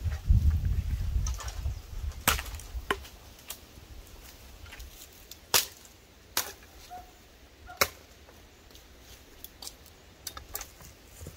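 Machete chopping a wooden branch: sharp single strikes, a second or more apart and irregular, with a low rumble in the first second or so.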